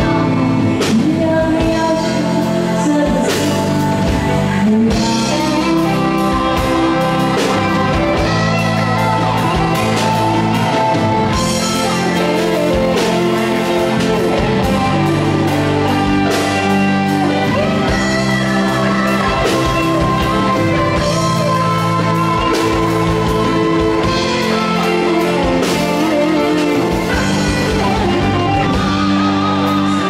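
A woman sings a Mandarin pop-rock song through a microphone and PA, backed by a band with guitar and drums, amplified in a large hall.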